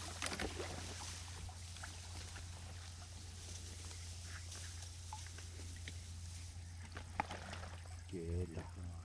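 Quiet on-the-water ambience: a steady low hum with faint water sounds and a few small clicks and knocks. A short wavering voice sound comes near the end.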